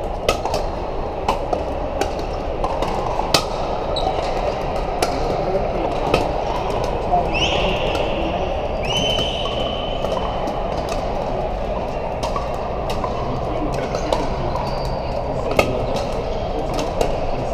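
Pickleball paddles striking the hard plastic ball, sharp pops at irregular intervals from several courts at once, over the steady chatter and echo of a crowded hall. Two brief high squeaks come about seven and nine seconds in.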